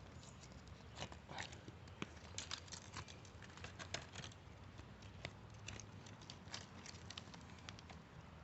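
Faint, irregular scraping and small clicks of dirt and debris being dug and pried away by hand with a makeshift digging tool, a weak stand-in for a metal one.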